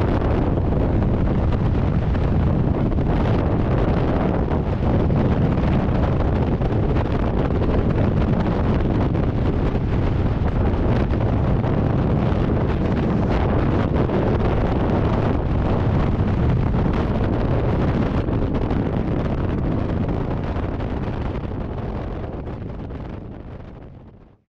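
Freefall wind rushing over a skydiver's camera microphone, a loud steady rumbling noise that fades away over the last few seconds.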